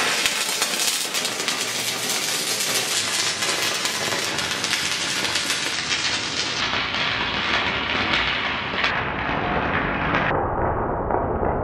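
Stick (MMA) welding arc crackling and sizzling steadily as the electrode burns against rusty steel, sounding duller toward the end.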